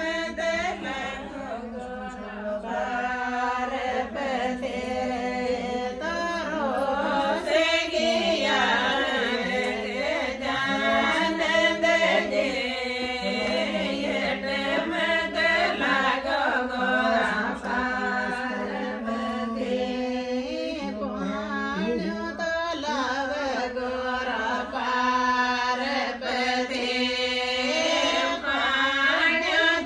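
Chant-like singing with a steady low drone underneath, continuing without a break.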